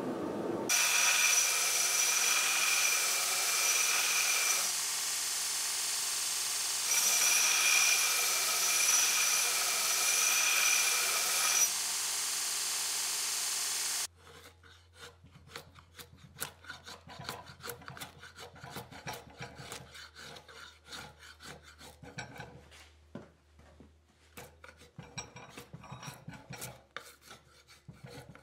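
A power grinder runs with a steady high whine, louder in two long spells, and cuts off suddenly about halfway through. Then a hand file and rasp scrape a wooden tool handle in quick, uneven strokes.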